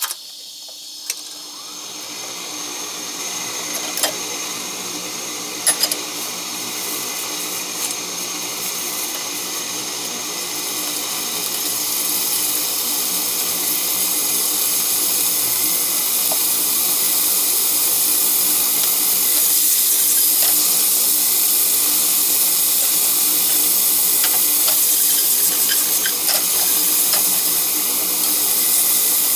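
Food sizzling in a frying pan for a meat-and-vegetable stir-fry over a steady mechanical hum. The sizzle builds up about a third of the way in and then holds steady, with a few light clicks before it.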